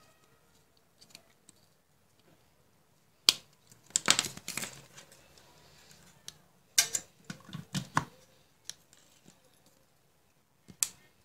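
Handling noise: sharp clicks and knocks as a small screwdriver, a small circuit board and its cables are picked up and set down on a hard tabletop, coming in a few short clusters.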